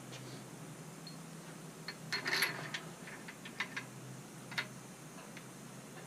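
Light metallic clicks and a short scraping rattle from a hand working over a bare Gen 3 Hemi engine block, densest about two seconds in, then a few single clicks up to near the end. A low steady hum underneath.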